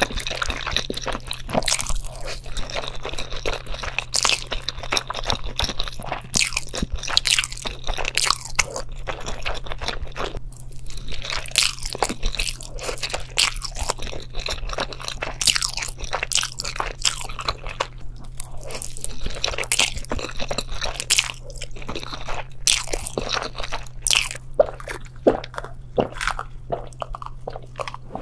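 Crunching: many short, crisp crunches in irregular quick succession, over a steady low hum.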